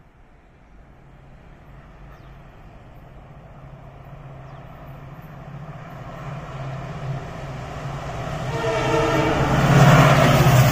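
Indian Railways WDP-4D diesel locomotive, with its two-stroke V16 EMD engine, approaching at speed and growing steadily louder, its low engine drone rising to a close pass. It sounds its horn from about two-thirds of the way in, just before it passes.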